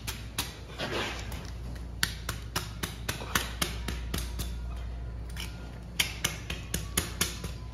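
Long knife cutting into the side of a large wild bluefin tuna, giving runs of sharp, irregular clicks and crackles as the blade is worked along the flank, one run about two seconds in and another about six seconds in. Under it is a steady low hum.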